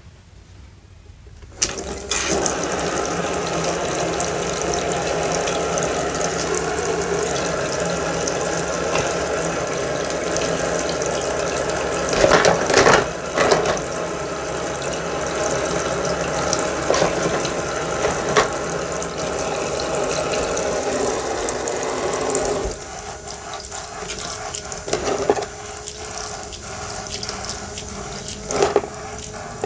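Water running steadily from a faucet into a sink, starting about two seconds in and easing to a lighter flow about three-quarters of the way through, with a few clicks and knocks.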